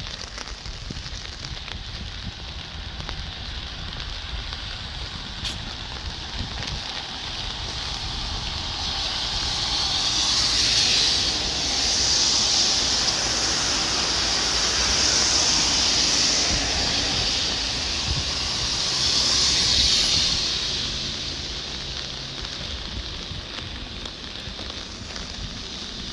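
Steady rain with traffic passing on a wet road: tyre hiss swells up about a third of the way in, peaks twice with a short dip between, and fades away before the end.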